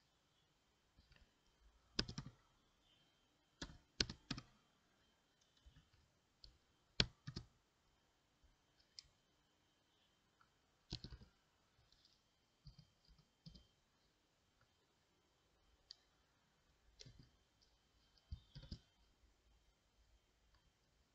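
Faint, slow keystrokes on a computer keyboard: sparse single clicks and short clusters of two or three, irregularly spaced a second or more apart.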